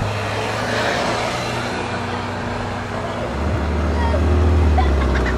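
Supercar engines running at low revs, with a steady low rumble; about three seconds in, a deeper engine note comes in and grows louder.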